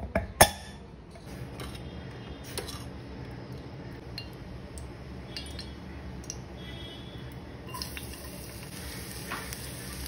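Two sharp metallic clanks as the whistle weight is set onto a stainless-steel pressure cooker lid. Then a steady low hum with occasional light clinks of steel cookware.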